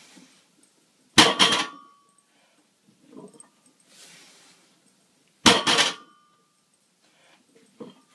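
A loaded 395 lb barbell set down on the floor twice, about four seconds apart, each landing a loud heavy thud with the plates clanking and a short metallic ring. Heavy breathing from the lifter between the reps.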